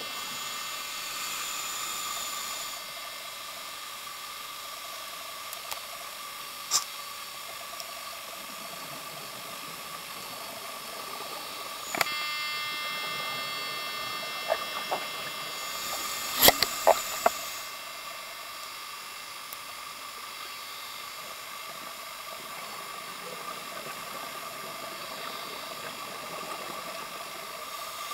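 Steady hiss with a thin electronic whine, the self-noise of an underwater video camera in its housing. Sharp clicks a few times, with a cluster of louder clicks and pops about two-thirds of the way through.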